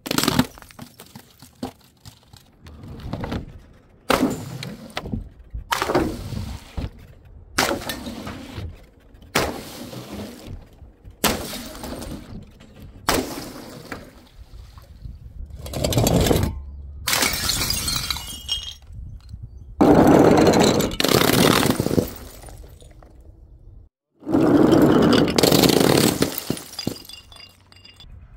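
Glass bottles shattering one after another, about twenty crashes a second or so apart. The later crashes are longer and louder, with glass breaking and scattering for a second or two each.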